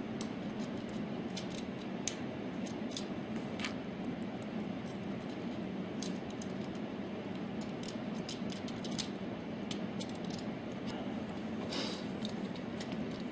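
Small metal clicks and scrapes as spring-steel cage nuts are pressed by hand into the square holes of a steel rack-rail bracket, scattered irregularly throughout, over a steady low hum.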